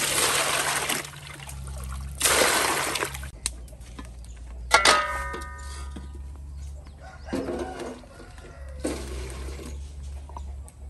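Water poured in two loud splashing gushes over whole snakehead fish in a metal basin, followed about five seconds in by a metal clank that rings briefly.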